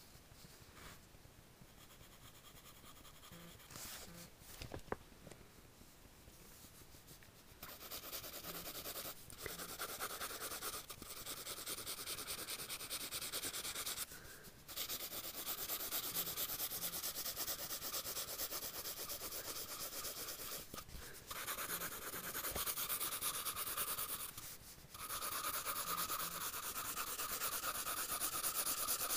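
Pencil on lined notebook paper: faint sketching strokes at first, then, about eight seconds in, loud continuous rubbing over the page, broken by four short pauses.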